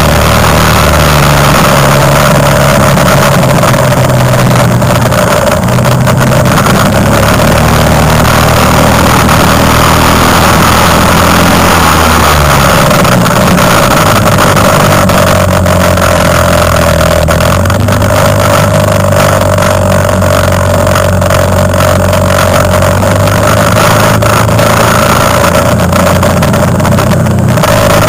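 Quad bike (ATV) engine running very loud under the onboard microphone. Its pitch steps up and down every few seconds as the throttle and speed change.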